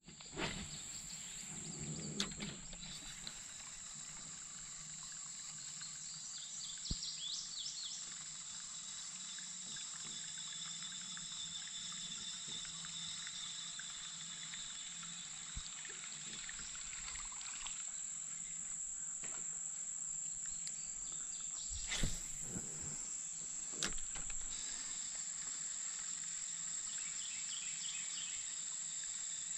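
Insects chirring in one steady, high, even tone over faint water noise, with a few short knocks about 22 and 24 seconds in.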